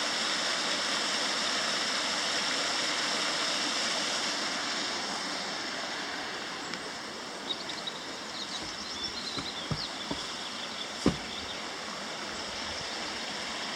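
Small mountain stream rushing, a steady water noise that eases a little about halfway through. A few light knocks and a sharper click come in the second half.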